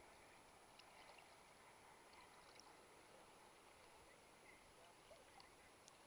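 Near silence: faint, even water noise from the sea around the camera at surface level, with a few soft clicks.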